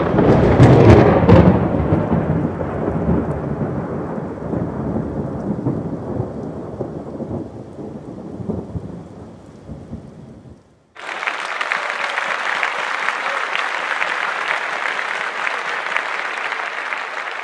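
Thunder: a loud clap that rolls on in a low rumble and slowly fades over about ten seconds before cutting off. After a short gap a steady, even hiss begins and runs on.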